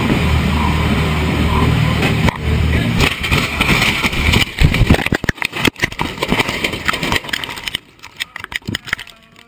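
A light aircraft's engine running steadily at low altitude, then, from about two to three seconds in, the plane crashing through trees: a long run of cracking, banging impacts and rattling wreckage that dies down to scattered crackles near the end.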